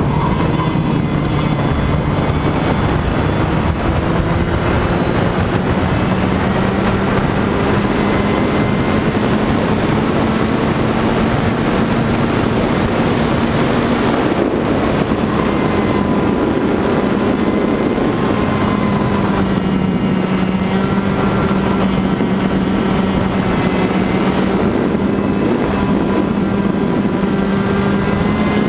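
Racing kart's two-stroke engine heard from onboard while lapping, running hard throughout. Its note climbs slowly over the first dozen seconds, drops briefly about halfway, then holds steady.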